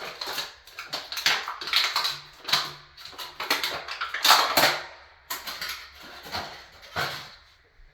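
Quick, irregular crinkling, rustling and tapping as a toilet wax ring and its wrapping are handled and set in place on the flange.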